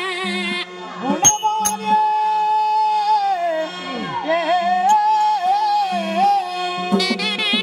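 South Indian folk music: a small double-reed pipe plays a wavering phrase that stops within the first second. A melodic line of long, bending held notes then carries on over a steady drone and light drum strokes. The reed pipe comes back in near the end.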